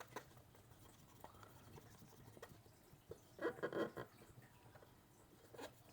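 Faint scrubbing and small clicks of a Leatherman Wave Plus multitool being wiped clean in its joints and crevices, with a short louder spell of rubbing about three and a half seconds in.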